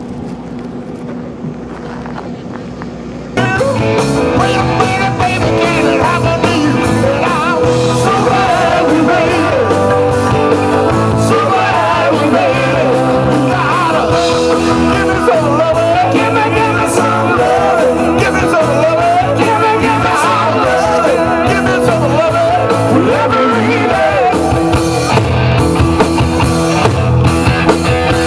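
After about three seconds of quieter background noise, a live rock-and-roll band starts abruptly, with drum kit, bass guitar, saxophone and singing. The music plays steadily and loudly from then on.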